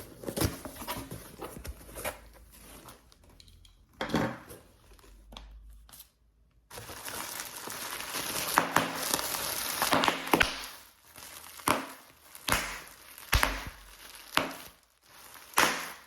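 Packaging being handled and crinkled: irregular rustling, a stretch of continuous crinkling, then several separate sharp crackles toward the end.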